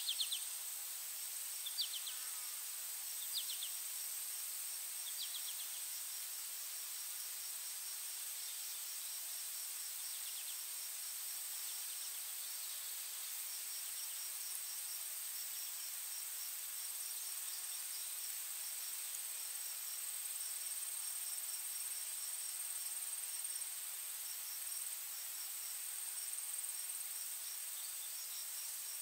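Steady high-pitched insect chirring, like crickets, with a fast pulsing chirp running over it. A few short bird chirps come in the first five seconds.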